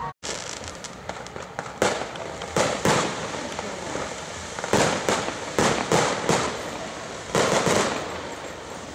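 Fireworks firing from a temple roof: a rapid run of sharp bangs over continuous crackling. The loudest bangs come in clusters about two, three, five, six and seven and a half seconds in.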